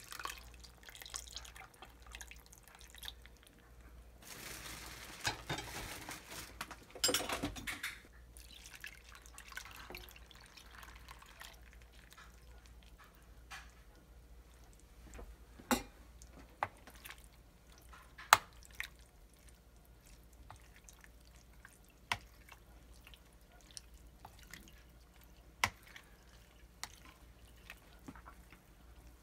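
Soy-sauce marinade (sake, mirin and soy) poured from a metal pot onto salmon roe in a bowl for a few seconds, splashing and trickling. After it come a handful of separate sharp clicks as a spoon works through the roe.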